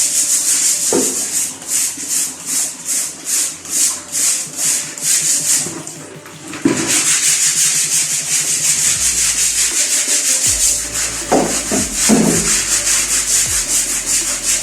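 Stiff-bristled brush scrubbing back and forth, in even strokes about two a second at first, then faster and more continuous from about halfway, with a couple of knocks near the end.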